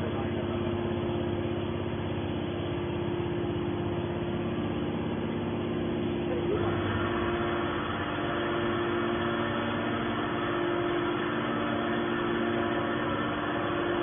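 Hydraulic scrap metal baler's power unit, an electric motor driving the hydraulic pump, running with a steady hum. About six and a half seconds in, a higher-pitched note joins it.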